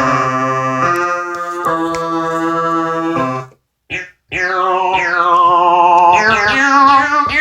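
Synthesizer music: held keyboard chords that stop about three and a half seconds in, then after a short break a run of synth notes that slide down in pitch with a wobble.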